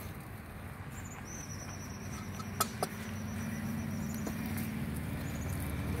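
A road vehicle's engine rumbling and growing steadily louder as it approaches. About two and a half seconds in come two sharp clicks close together, and a thin high whine runs through the middle.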